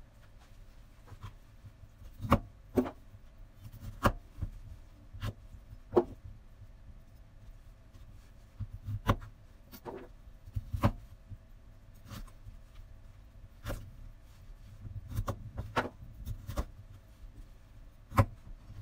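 Kitchen knife cutting broccoli florets on a wooden cutting board: sharp, irregular knocks of the blade hitting the board, a second or more apart, with soft handling rustles between.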